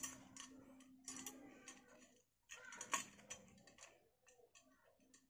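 Faint clicks and taps from small tools and phone parts being handled, with a few sharper ticks near the start and about three seconds in.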